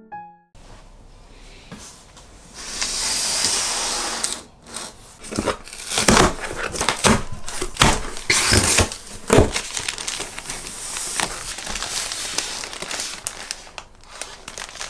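Plastic-wrapped diaper packs and a cardboard box being handled: crinkling and rustling of the plastic, with a steady rushing scrape about three seconds in and a run of sharp crackles and knocks in the middle.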